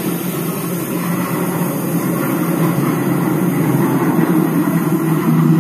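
London Underground Northern line tube train pulling out of a deep-level platform: a loud, steady rumble with a low motor hum, growing a little louder near the end.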